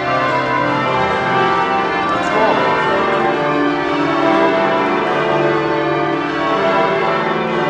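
A peal of twelve church bells rung in changes, the strokes following one another so that many ringing tones overlap.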